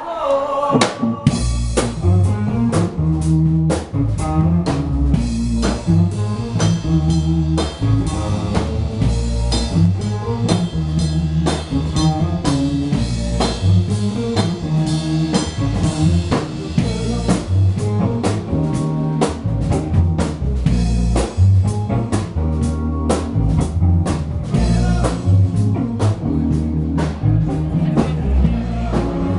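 Live rock band playing: a drum kit keeps a steady beat under a strong bass line and electric guitar, with the drums coming in about a second in.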